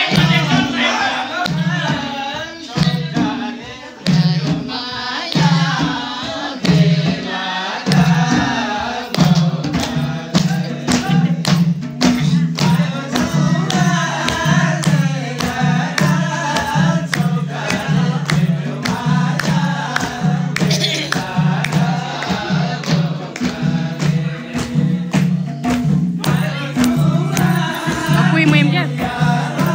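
Group singing of Nepali dohori, the call-and-response folk song, with voices rising and falling over a steady, evenly repeating low beat and sharp percussive strokes.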